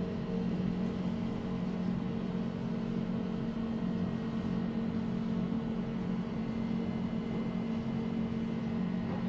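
Steady low hum inside a descending glass-walled passenger elevator car, the level of its drive and ventilation unchanging.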